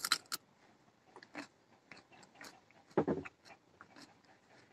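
A bite into a fresh raw cucumber, a crisp crunch at the start, followed by quieter chewing with faint crunches and a louder chew about three seconds in.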